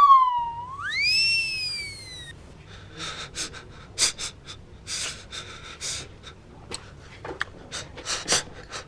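A whistle-like tone slides down and then back up over the first two seconds, then slime is squished and worked with a long run of short, irregular crackling pops.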